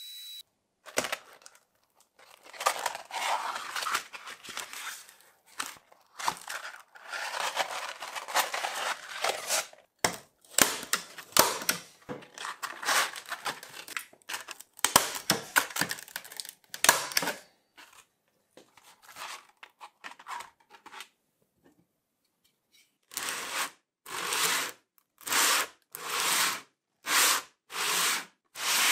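Hand-worked scraping and rubbing on wood: irregular rasping strokes, then, after a short pause, even back-and-forth strokes about once a second.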